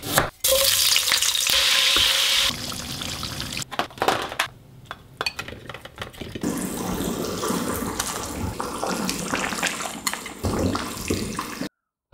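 Kitchen food-preparation sounds in quick cuts: a knife slicing ginger on a wooden board, a loud hiss of running tap water for about two seconds, then scattered clicks and clatter of food being handled.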